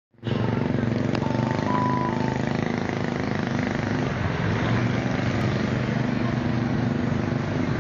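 A vehicle engine running steadily close by, with a short high tone about a second in.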